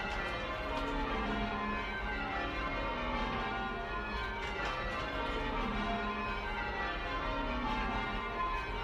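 A ring of ten church bells being change rung, heard from inside the ringing room below them: a steady, even succession of overlapping bell strokes.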